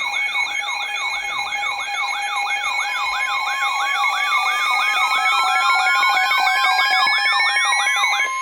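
Several electronic sirens sounding together: a fast yelp sweeping up and down about three times a second over steady pulsing tones, joined from about three seconds in by a wail that rises steadily in pitch. The layered sirens cut off just before the end.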